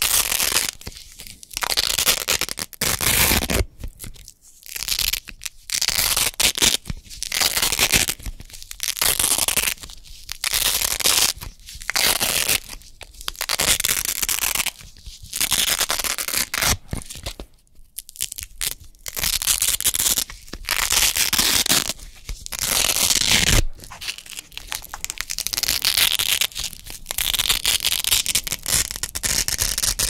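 Velcro (hook-and-loop) strips being ripped apart over and over close to the microphone: a crisp, crunchy tearing rasp about once a second, with short pauses between pulls. Near the end the rips run together into a more continuous rasp.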